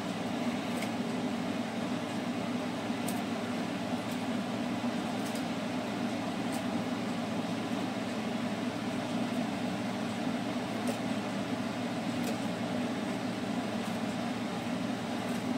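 Steady low mechanical hum of a running appliance or fan, with a few faint taps as watermelon chunks are dropped by hand into a stainless-steel mixer jar.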